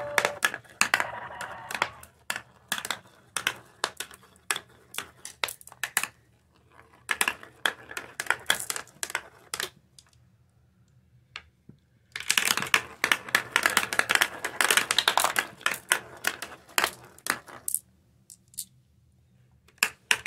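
Glass marbles rolling and clattering down the plastic spiral bowls of a marble run toy, a rapid stream of clicks and rattles. It comes in bursts, with a short pause about halfway through and another near the end.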